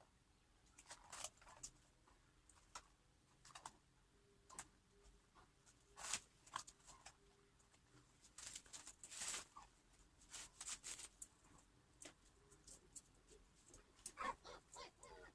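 Faint, irregular scrapes and rustles of cardboard being handled and worked, coming in short scattered bursts.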